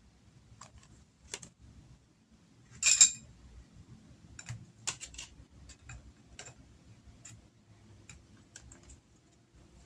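Oracle cards being handled and laid down: a string of light clicks and taps, with one louder, brief rustle of the cards about three seconds in.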